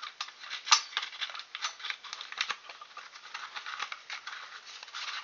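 Hands handling the open case of a German field telephone: irregular clicks, taps and rustles.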